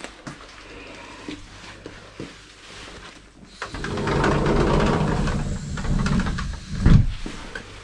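Shelter door rattling and rumbling for about three seconds as it is moved, then a single thump near the end.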